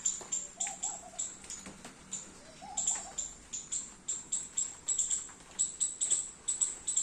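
Squirrel calling: a fast, steady run of short, high-pitched chirps, about four a second.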